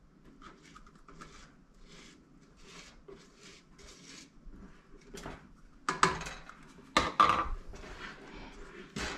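A spatula stirring a thick sugar candy mixture in a stainless steel pot, scraping the pot in soft strokes about two a second, with three louder clanks against the pot in the second half.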